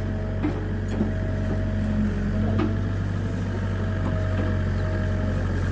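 Excavator's diesel engine running steadily, with a thin whine over the low drone and a few faint clicks in the first few seconds.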